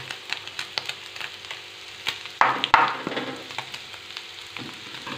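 Shredded cooked chicken frying in oil in a pan: a steady light sizzle with scattered clicks from a wooden spatula. About halfway through, a louder hiss rises as sliced garlic goes into the hot pan.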